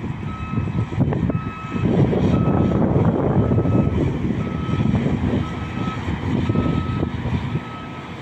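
Backup alarm on heavy construction machinery beeping steadily about once a second, each beep a single held tone about half a second long, over a loud low rumble of a large diesel haul truck.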